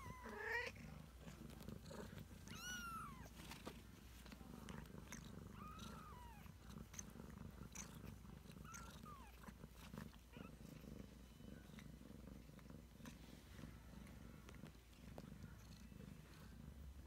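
Ragdoll cat purring steadily, with a few short, high-pitched mews from three-week-old kittens in the first ten seconds or so.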